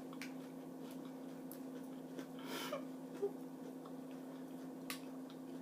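Faint eating sounds: a few soft clicks and a brief breathy mouth noise about two and a half seconds in, over a steady low hum.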